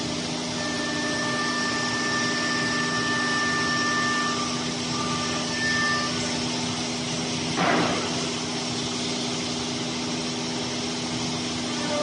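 Water-cooled 16 kW spindle of a five-axis CNC woodworking router running and milling wood: a steady machine hum with high whining tones that come and go. There is one short, louder rasping burst a little past halfway.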